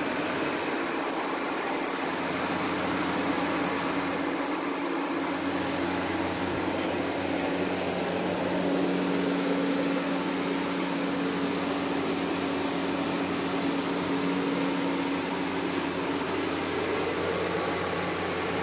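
Electric floor fan running with a steady motor hum and rushing air.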